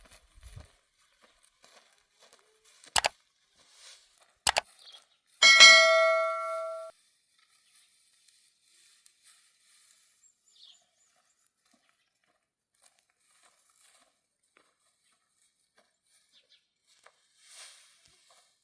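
Two sharp clicks, then a single loud metallic ring like a struck bell. The ring has several tones, holds for about a second and a half, then cuts off abruptly. Near quiet follows.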